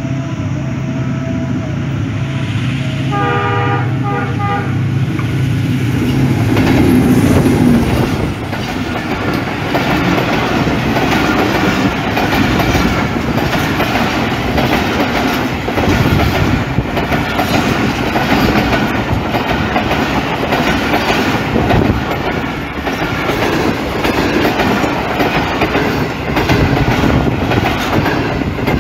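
Diesel passenger locomotive approaching with a steady engine drone and sounding its horn once, about three seconds in, then passing at speed. It is followed by a long train of passenger coaches whose wheels clatter rapidly over the rail joints.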